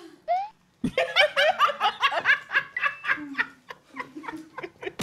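Hearty laughter: a fast run of rapid laugh pulses that starts about a second in and keeps going.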